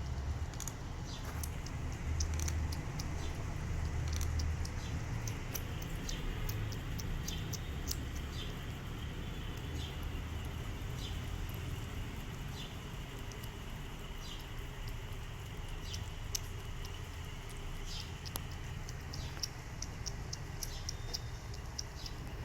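Cats eating, a kitten lapping soup: a run of small, quick, irregular clicks from lapping and chewing over a steady low rumble.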